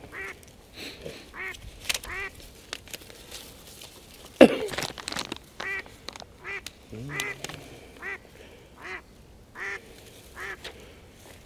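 Geese calling: short, high-pitched goose calls repeated about every three-quarters of a second. A sudden loud knock stands out about four and a half seconds in.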